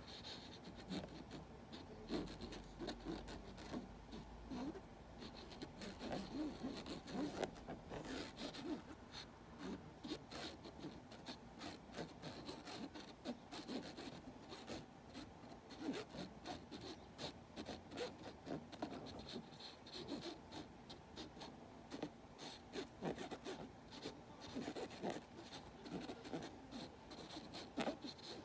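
A pen scratching and rubbing over a lampshade in short, irregular strokes.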